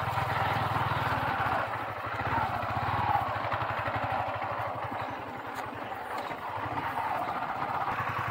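Yamaha MT-15 motorcycle's single-cylinder engine running as the bike is ridden along, a steady low engine pulse under wind noise.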